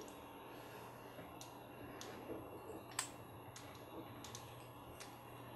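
Light clicks and taps of small plastic and metal parts of an Axial Capra RC crawler's rear axle being handled and fitted together by hand. There are several short clicks, the sharpest about three seconds in, over a faint steady hum.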